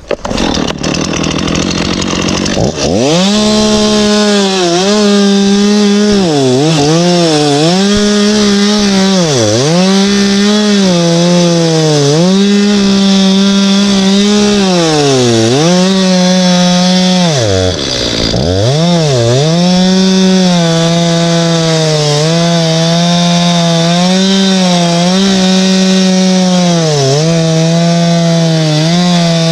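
Stihl two-stroke chainsaw cutting into a log at full throttle, opening up about three seconds in. Its engine note dips and recovers every second or two as the chain bogs under load in the wood, with one deeper drop toward idle about two thirds of the way through.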